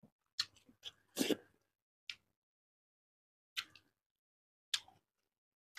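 Faint, scattered mouth sounds of a person eating by hand: about six short lip smacks and clicks, with a slightly longer throat noise about a second in.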